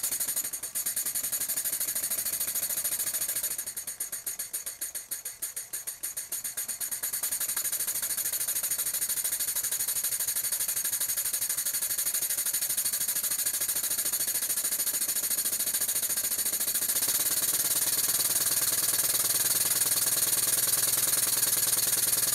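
Stuart 10V single-cylinder vertical model steam engine running on compressed air, its exhaust chuffing so fast that it blurs into a steady hiss. About four seconds in it slows to separate uneven beats for a few seconds, then speeds up again and runs fast and steady. The valve timing is retarded, with air admitted well past top dead centre.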